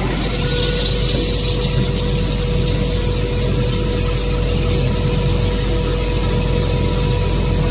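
Corn peeling (dehulling) machine running steadily, with a low motor hum and a constant humming tone over an even mechanical noise.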